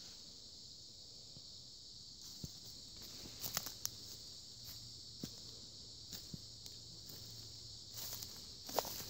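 Footsteps crunching on a forest floor: irregular crunches and snaps starting about two seconds in, loudest near the end. A steady high insect chorus runs underneath.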